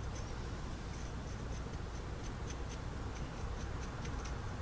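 Flat paintbrush dry-brushing a small plastic model part: quick, light strokes scratching back and forth, about five a second, over a steady low hum.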